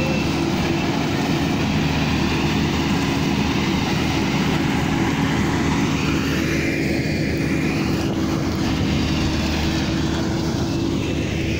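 Kubota DC35 rice combine harvester running steadily, its diesel engine and threshing machinery droning at a constant pitch as it cuts into the standing rice.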